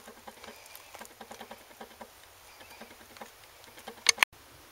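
Light scattered clicks and rustles of handling, with two sharp clacks close together near the end, then the sound cuts off abruptly.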